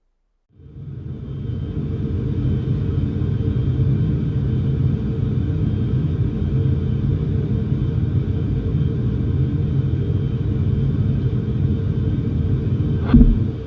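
Airplane cabin noise: a steady low rumble that fades in about half a second in and holds evenly, with a short thump near the end.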